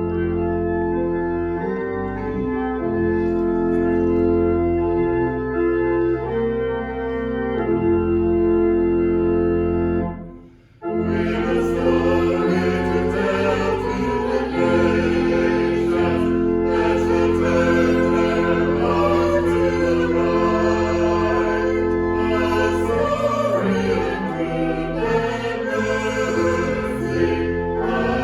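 Church organ playing held chords. About ten seconds in it breaks off briefly, and fuller music with a choir singing begins.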